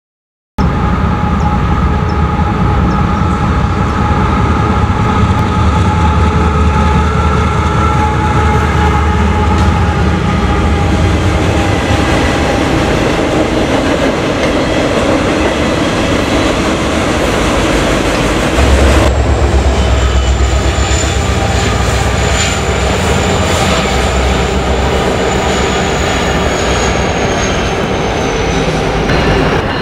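Freight train of autorack cars rolling past close by: a loud, continuous rumble of wheels on rail. In the second half a thin, high wheel squeal slowly falls in pitch.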